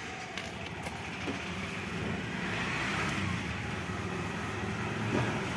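A motor vehicle running close by, a steady low rumble with traffic noise that grows louder from about two seconds in.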